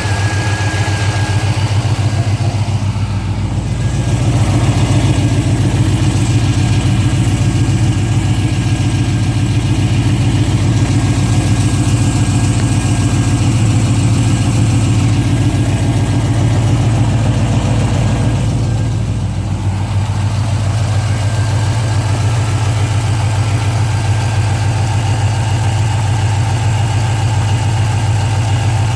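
2005 Pontiac GTO's 6.0-litre LS2 V8 idling steadily, with a tick that the owner cannot place as a lifter tick or an exhaust leak.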